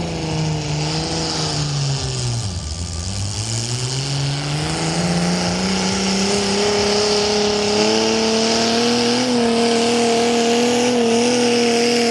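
Garden pulling tractor engine running hard under load. Its pitch sags to a low about two to three seconds in, then climbs steadily and holds at high revs.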